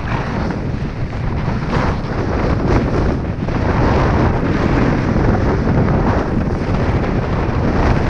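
Blizzard wind buffeting the microphone: a loud, steady low rumble of wind noise that rises and falls in gusts.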